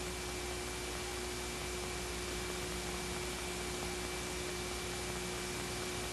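Steady hiss with a faint steady hum: the background noise of an old film soundtrack during a silent stretch.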